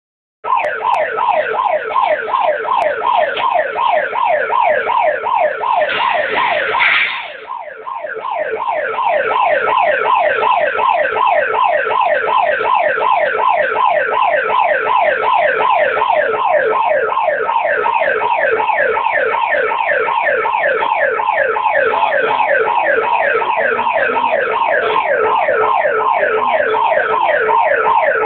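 Emergency alert alarm tone: an electronic siren made of quickly repeating falling pitch sweeps, with a brief noisy break about six seconds in.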